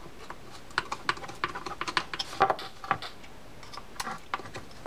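Light, irregular clicks and taps of small metal fishing-reel parts being handled and set down during reassembly of a baitcasting reel.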